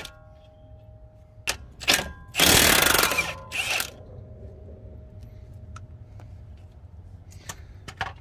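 Cordless impact wrench with a 24 mm socket hammering on the strut-to-steering-knuckle bolts in four bursts: two short ones, then a longer, louder one about two and a half seconds in, then a short one. A few light metal clicks follow near the end.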